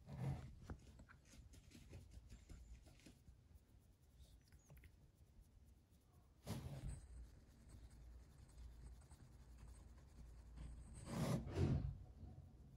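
Faint rubbing and rustling as a hand strokes a cat's fur, the hand and sleeve brushing against the woven fabric of a cat house. It is louder right at the start, again about six and a half seconds in, and again about eleven seconds in.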